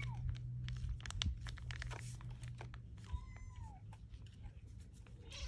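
A kitten meows once about three seconds in, a short call that rises and falls in pitch. Around it come small crinkling clicks of a plastic wet-food pouch being squeezed, over a low steady hum.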